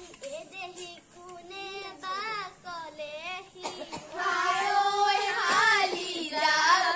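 Young girls singing a Bihu song in a wavering, ornamented melody, getting louder about four seconds in.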